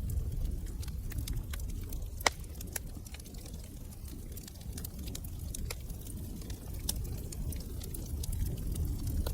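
Wood fire crackling in a fireplace: scattered sharp pops and snaps over a steady low rumble, with one louder pop about two seconds in.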